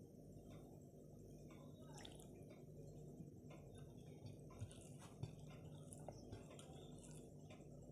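Faint soft, wet squishes and small clicks of rice being mixed by hand on a plate, with a couple of sharper clicks a little past halfway, over a low steady hum.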